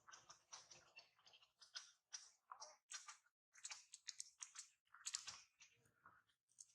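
A faint, irregular run of short clicks and crackles, a few to several a second, with no voice.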